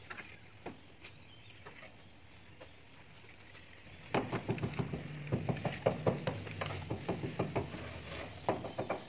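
Steel plastering trowel working cement render onto a brick wall: a quick run of sharp scrapes and knocks from about four seconds in, over a low steady hum.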